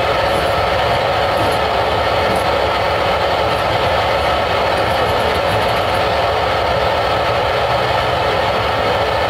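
Steady, loud machine noise: an even rushing with no rhythm and no breaks.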